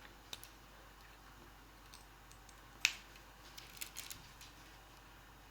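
Faint, scattered clicks and taps from handling a lip gloss tube during a swatch, with one sharper click about three seconds in and a few smaller ones a second later.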